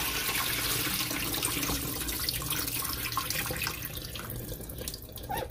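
Kitchen faucet running into a glass bowl of raw shrimp, the water splashing over and into a stainless steel sink as the shrimp are rinsed. The running water gets quieter near the end.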